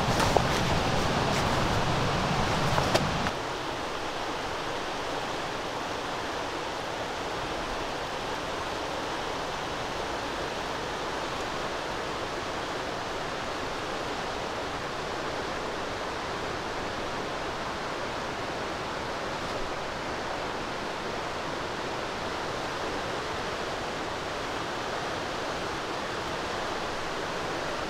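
Steady, even rushing noise of outdoor ambience. For the first three seconds it is louder and deeper, with a few sharp clicks, then it drops to a level hiss.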